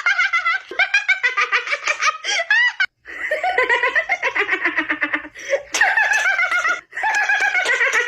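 Meme laughter sound effects: high-pitched rapid laughing clips played back to back, each ending abruptly, with brief silent cuts about three seconds in and near seven seconds.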